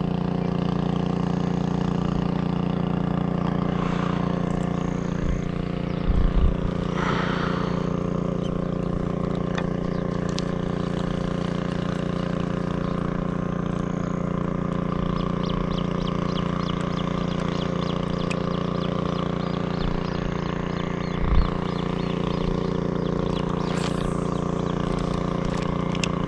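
A steady, unchanging motor hum runs throughout, with two soft low thumps, one about six seconds in and one about twenty-one seconds in.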